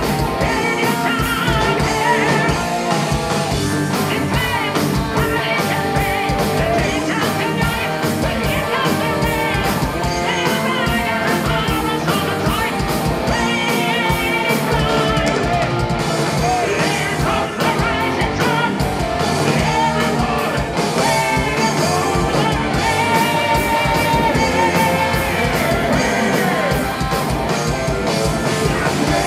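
Heavy metal band playing live: a male lead singer singing over electric guitars and a drum kit with rapid, dense drum and cymbal strokes.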